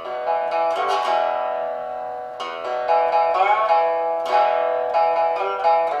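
Homemade fretless three-string solid-body resonator guitar, with a picture-frame body, yardstick fretboard and a stove flame diffuser as the resonator cover, tuned open E (E-B-E). It is picked and strummed in a slow run of notes, several of them sliding in pitch, with a dobro-like tone.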